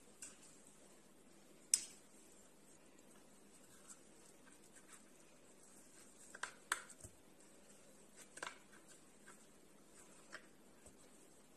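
Metal spoon scooping baked potato flesh out of the skin onto a plate: faint scrapes with a few sharp clicks, the loudest about two seconds in and a cluster around six to seven seconds in.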